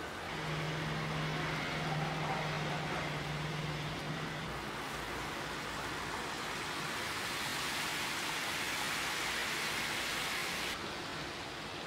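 Egg omelette batter sizzling in oil on a flat griddle, a steady hiss that grows stronger about seven seconds in and drops off abruptly near the end. A low steady hum runs under it for the first four seconds.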